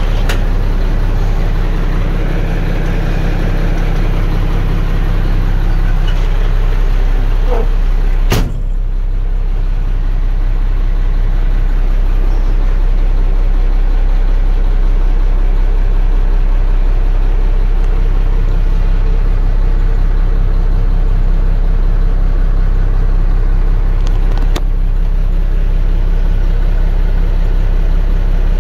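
Mack 12.0-litre six-cylinder diesel engine idling steadily, heard from inside the truck's cab. A single sharp knock comes about eight seconds in.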